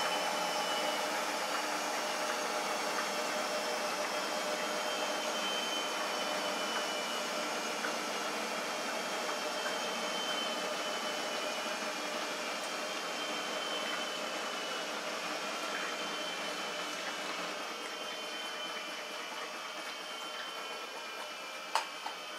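Steady whirring of a motor, its many tones sinking slowly in pitch as it fades a little. A sharp click near the end.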